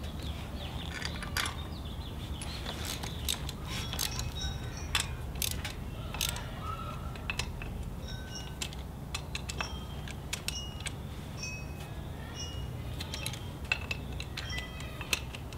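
Metal hand tools clicking and clinking irregularly at a motorcycle's rear wheel hub as the wheel bolts are worked and tightened, with short metallic pings among the clicks.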